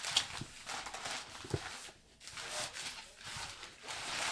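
Packaging rustling and crinkling in uneven spells as it is handled and pulled off a suitcase, with a few soft knocks.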